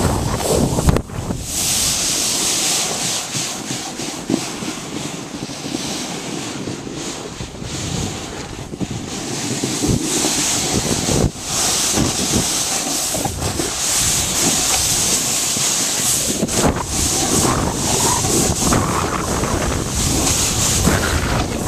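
Wind buffeting the microphone of a handheld camera on a snowboard run downhill, over the steady hiss and scrape of the board on snow. Scattered short knocks come from the board hitting bumps.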